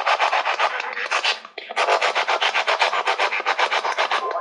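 Spirit box sweeping through radio stations: a fast, even chopping of static, about eight or nine pulses a second, that drops out briefly about a second and a half in and then picks up again.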